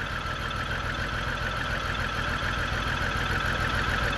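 2002 BMW X5 3.0's inline-six engine idling steadily with a multiple misfire, which the owner puts down to a failing fuel pump.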